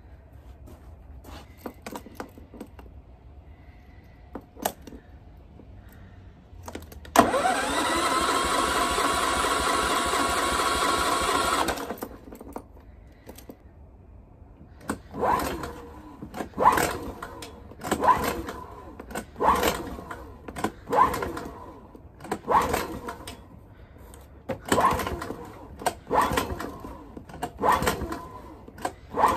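SF2600F inverter generator being cranked without starting: about five seconds of steady electric-starter cranking that stops abruptly, then repeated pulls on the recoil starter rope, roughly one every second and a half, each spinning the engine briefly with a rising whir. The engine does not catch, a no-start that the owner suspects lies with the spark plug.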